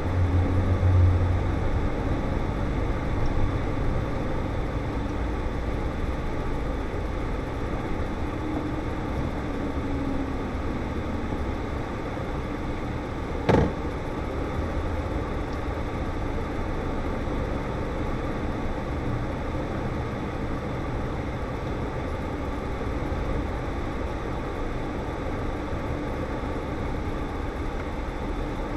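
Steady cab noise from a Scania S520 V8 lorry on the move: a low engine drone over road noise, a little stronger in the first couple of seconds. A single sharp click sounds about halfway through.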